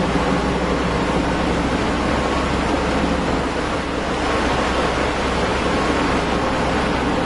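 Off-road vehicle's engine running steadily as it crawls along a steep slickrock ridge, heard through an onboard camera microphone as a continuous rumbling noise with a faint engine hum beneath it.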